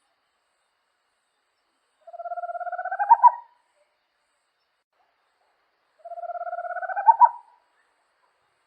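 A small owl calls twice, about four seconds apart. Each call is a rapid purring trill that rises slightly in pitch over about a second and a half and ends in two louder, accented notes.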